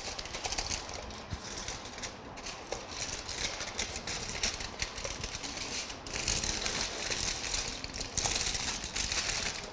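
Aluminium foil crinkling and rustling as it is folded and pressed around a glass petri dish, crackling unevenly throughout and a little louder in the second half.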